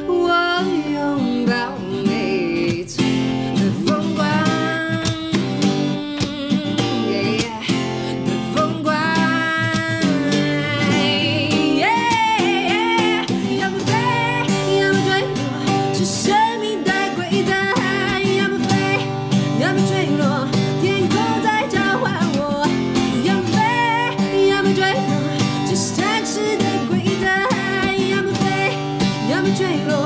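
A woman singing a Mandarin pop song with acoustic guitar accompaniment.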